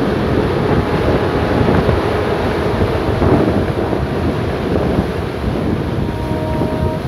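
Quarry rock blast collapsing: a dense, steady rumble of broken rock sliding and falling down the blasted face, with wind on the microphone.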